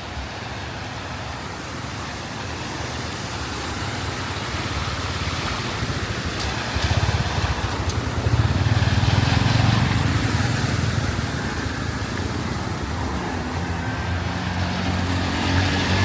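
Street traffic: vehicle engines passing close amid steady road noise, building to the nearest pass about eight to eleven seconds in.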